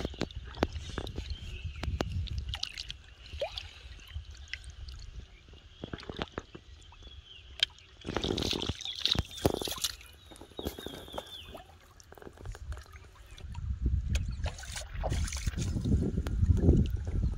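Shallow pond water sloshing and splashing around a person wading, with small splashes and knocks as plastic bottle traps are set in the water. A louder spell of splashing comes about eight seconds in, and the sloshing swells again near the end.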